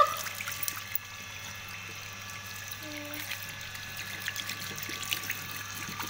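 Tap water running in a thin, steady trickle into a washbasin and over a parrot standing under it.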